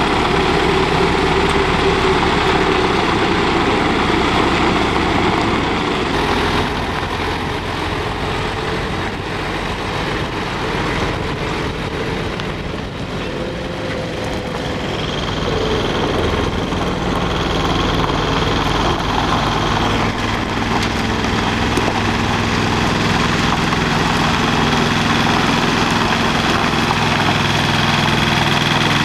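Heavy-haulage lorry's diesel engine running steadily near idle, a thin high whine joining about halfway through.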